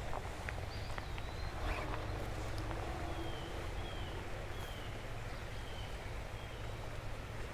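Wind rumbling on the microphone with rustling, and a small bird giving four short, falling high call notes about three seconds in.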